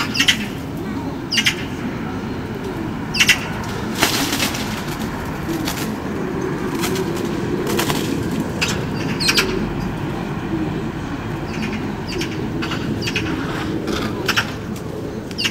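Birds in a dense conifer hedge: short sharp chirps every second or two over a continuous low background, with a couple of brief flaps of wings.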